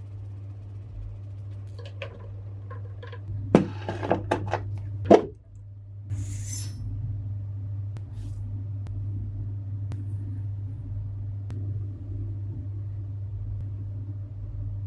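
Vibratory tumbler's motor humming steadily, with a run of sharp clinks and knocks about four to five seconds in. About six seconds in there is a short gritty rustle of the tumbling media.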